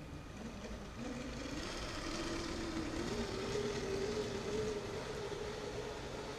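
Motorised clamp-brick toy train setting off on plastic track. Its small electric motor whines and rises in pitch as the train gathers speed, then runs steadily, with the wheels rolling on the track.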